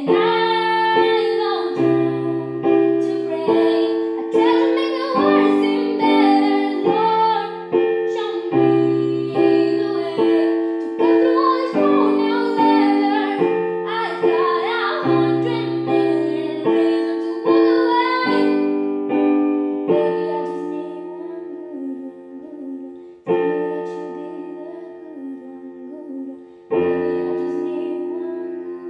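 A young female voice singing a slow song while accompanying herself with repeated block chords on a digital piano. The singing stops about two-thirds of the way through, leaving held piano chords struck again twice near the end.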